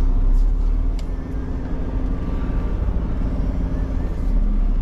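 Semi truck's diesel engine running steadily at low revs, with a single short click about a second in.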